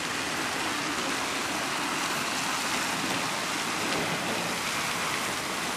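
Steady hiss of a fountain jet spraying and splashing into a pond.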